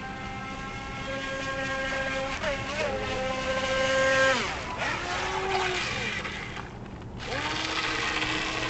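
Electric motor of a Feilun FT009 RC speedboat whining at high throttle, holding a steady pitch with a brief dip, then dropping away sharply about four seconds in as the throttle is cut, and rising back to speed near the end.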